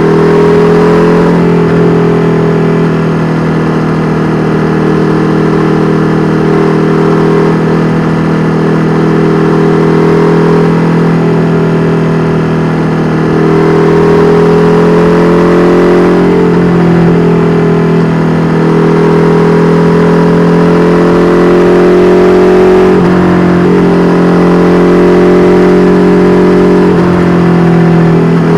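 KTM 1290 Super Duke R Evo's V-twin engine through an Austin Racing V3 Mini exhaust, running at moderate, fairly even revs, the pitch rising and falling gently, with a few brief throttle changes.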